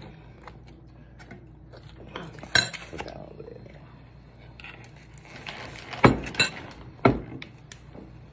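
Dishes and cutlery clinking and knocking as ribs are served from a glass baking dish onto a plate. A few sharp knocks stand out, the loudest about six seconds in.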